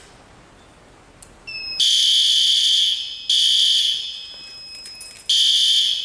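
A click as the fire alarm pull station is pulled, then about two seconds later the horn strobe on the panel's notification circuit starts sounding: a loud, high electronic blare in repeated blasts of about a second with short breaks between them.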